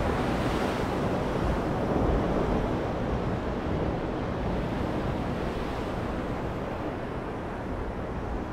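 Small waves breaking and washing up a sandy beach: a steady rush of surf that eases a little toward the end.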